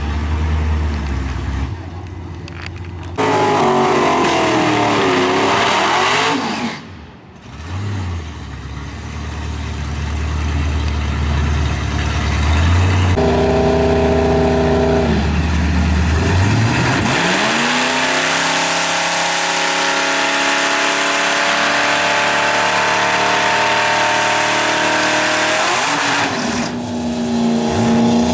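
Two Ford Lightning pickups' V8 engines at a drag strip start line: revving up and down, settling, then held at high, steady revs under a strong hiss for about ten seconds before easing off near the end.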